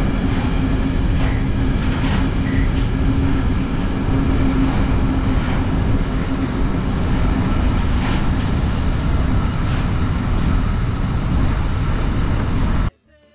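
Long container freight train rolling past on the adjacent track: a steady rumble of wagons, with a held tone in the first few seconds. It cuts off suddenly near the end.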